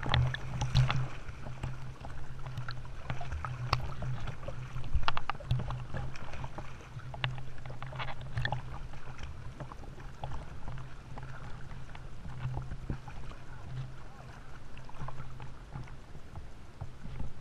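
Seawater splashing and sloshing right at the surface from a swimmer's kicking just ahead, with the biggest splash at the very start and smaller splashes coming and going after it. A steady low hum runs underneath.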